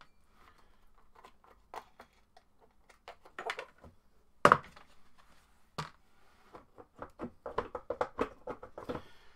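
Hard plastic covers of an air compressor being pulled off and handled: scattered knocks and clicks, one loud knock about four and a half seconds in, then a quick run of small clicks and rattles near the end.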